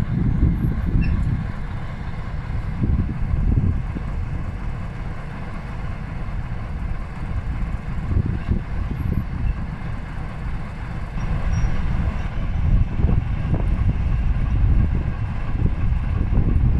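Diesel shunting locomotive's engine running as it slowly hauls a rake of covered freight wagons, a low rumble that swells and eases.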